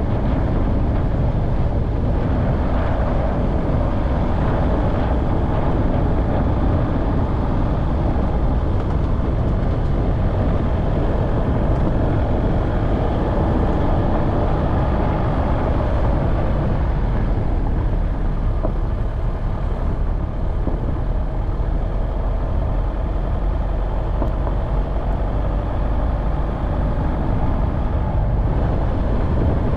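Off-road vehicle's engine running steadily as it drives along a mountain track, with a constant low rumble.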